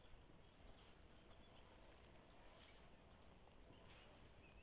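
Near silence: faint outdoor background with a few faint, brief high chirps.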